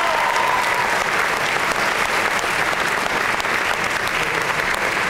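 Audience applauding steadily, dense continuous clapping, with a thin high tone over it in the first second.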